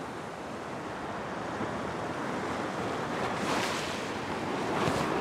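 Ocean surf breaking and washing over a coastal rock platform, a steady rush that swells twice in the second half as waves surge in.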